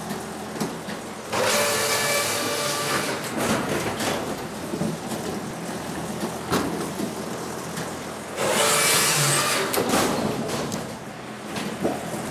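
Scheitfix firewood-cutting machine running steadily while its saw cuts through firewood twice: two loud cuts of a second or so each, with a ringing tone, about one and a half seconds in and again about eight and a half seconds in. Sharp wooden knocks from pieces being fed in fall between the cuts.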